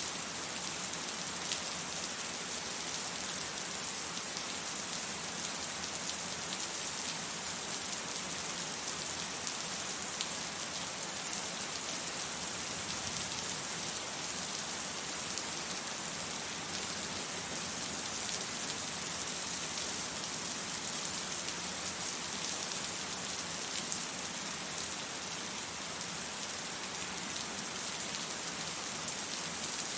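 Steady rainfall: a dense, even hiss of rain with a few sharper drop ticks here and there.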